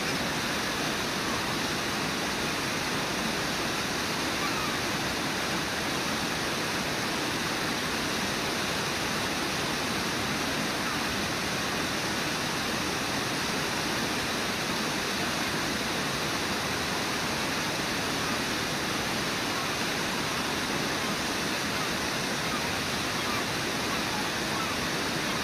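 Brooks Falls and the whitewater rapids below it, rushing steadily and evenly.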